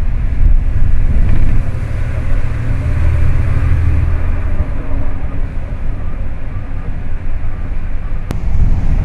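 Car driving on a wet road, heard from inside the cabin: a loud, steady low rumble of engine and tyres with a fainter hiss above it. A single sharp click near the end.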